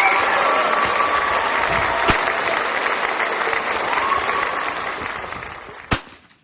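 Applause and cheering, fading away over the last couple of seconds, with a short sharp crack near the end.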